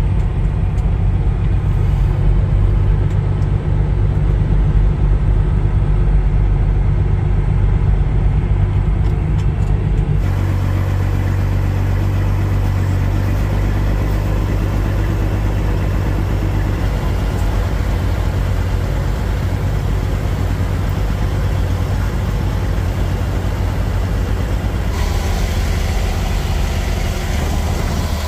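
Semi truck's diesel engine running steadily, heard from inside the cab, with a low, even rumble. The sound shifts about ten seconds in and again near the end.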